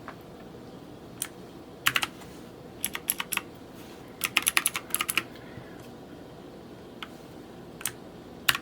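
Keystrokes on a Rosewill K81 Neon mechanical keyboard with clicky Kailh Blue switches: sharp key clicks, some single and some in short quick runs, the busiest run about four to five seconds in.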